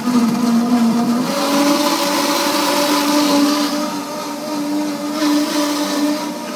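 Waring Xtreme Hi-Power commercial blender running on high, blending a fruit smoothie inside its clear sound enclosure. The motor starts with a steady whine, steps up in pitch about a second in as it comes up to speed, then holds steady over the hiss of the churning mix.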